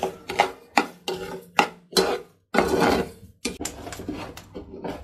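Steel spoon scraping and clinking against a stainless steel saucepan in a quick run of strokes, stirring dry sugar as it starts to melt into caramel, with one longer scrape midway.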